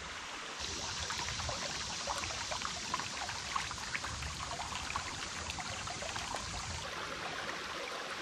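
Shallow rocky creek trickling and splashing over stones, a steady rush of water with many small drips and splashes.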